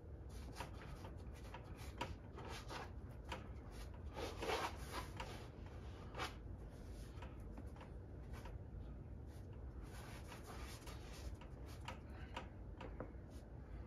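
Gloved fingers rubbing and smearing acrylic paint across a canvas on an easel: faint, irregular swishing strokes, the strongest about four and a half seconds in, over a low steady room hum.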